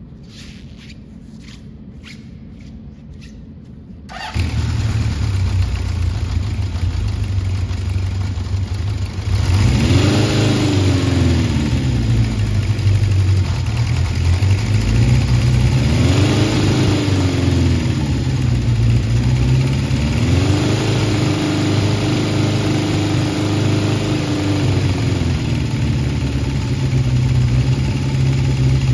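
A 1975 Honda CB750's air-cooled inline-four starts suddenly about four seconds in, after a few faint clicks, and runs at a fast idle. It is then revved three times, each blip rising and falling in pitch, before it idles steadily and drops to a lower idle near the end.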